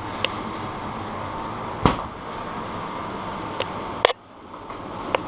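Scattered knocks and clunks as a Niner WFO mountain bike is lifted off its rack, with the loudest knocks about two and four seconds in, over a steady background noise.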